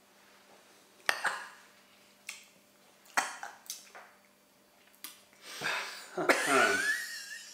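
People reacting to a sip of neat 60% absinthe: several sharp coughs and gasps, a glass set down on a table about five seconds in, then a drawn-out strained vocal groan whose pitch slides up and down.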